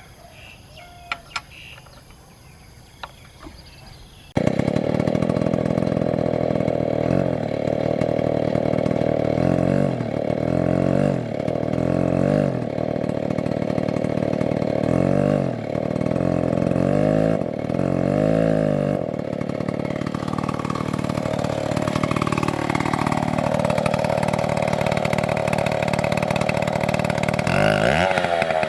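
A few faint knocks, then about four seconds in a STIHL chainsaw comes in abruptly and runs loud, revving up and down over and over. Later it settles into a steadier run, its pitch sagging for a few seconds.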